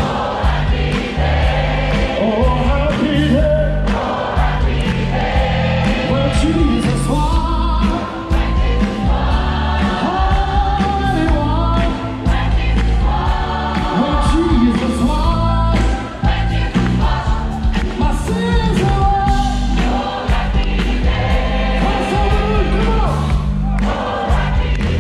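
Music with sung vocals over a steady, heavy bass beat.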